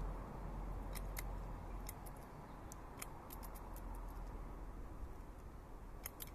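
Common blackbird pecking mealworms from a ceramic dish: sharp, irregular beak taps and clicks on the bowl, some in quick pairs or small clusters, over a steady low background rumble.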